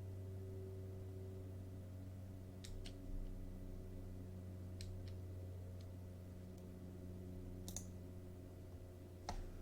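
A few scattered, sharp clicks of a computer mouse over a steady low electrical hum.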